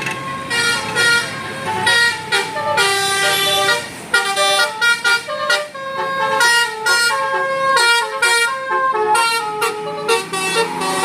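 Telolet bus horn, a set of multi-tone horns, playing a quick tune of short notes, often several pitches at once.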